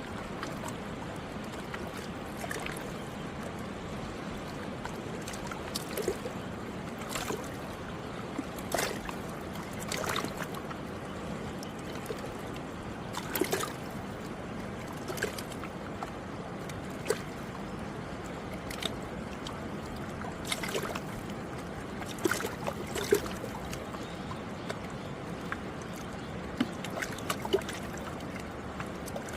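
Alaknanda river water flowing steadily past the bank, with small splashes and gurgles every second or two.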